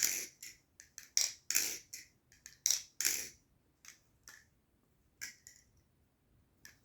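New Era Abyss balisong being flipped, its pivot washers just lubed: sharp clicks and clacks as the handles swing and close. There is a quick run of them in the first three seconds, then a few scattered clicks.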